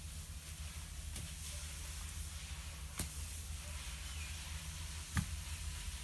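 A rake is dragged through a heap of cut grass and prunings, giving a faint rustling hiss and three sharp clicks, the loudest near the end. A low steady rumble runs underneath.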